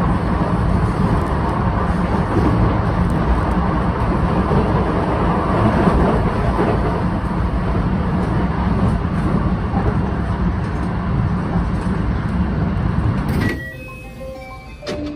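Steady running noise of an electric train heard from inside the carriage as it travels at speed. It cuts off suddenly near the end, and a few short, high tones follow.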